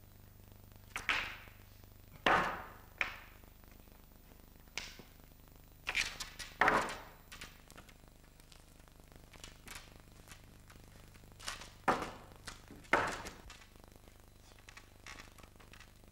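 A light pole frame knocking and thudding on a stage floor as it is tipped, shifted and set down: an irregular series of sharp knocks, each with a short ringing tail, the loudest about two, seven and thirteen seconds in.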